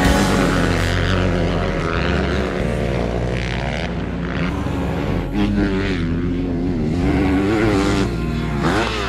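Motocross dirt bike engines revving as riders race the track, the pitch rising and falling again and again with the throttle.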